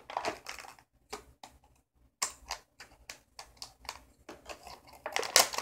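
Scissors snipping through a stiff clear plastic blister pack, the plastic crackling as it is handled. A run of short, irregular clicks and crinkles, with a brief pause about two seconds in and a louder cluster near the end.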